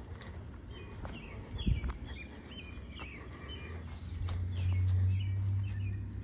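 Small birds chirping in quick, short, repeated notes, with a low thump about two seconds in. Near the end a low steady rumble swells for a couple of seconds and is the loudest sound.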